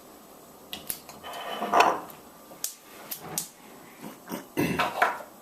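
Kitchen clatter of dishes and utensils being handled, with several sharp knocks and clicks and a brief louder swell of noise partway through.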